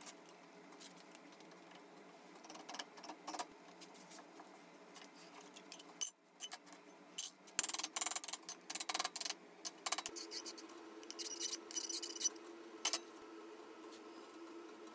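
Light metallic clinks and taps as thin steel plates are handled in a bench vise and set down on a steel welding table. The clicks are scattered at first, then come in a quick dense run about halfway through, over a faint steady hum.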